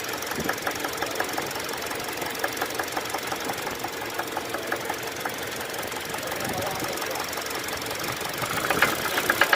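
Car engine running with a rhythmic internal knock, a few sharp ticks a second over the engine hum, getting louder near the end. The knock is the fault the mechanics diagnose as needing the engine pulled down and overhauled.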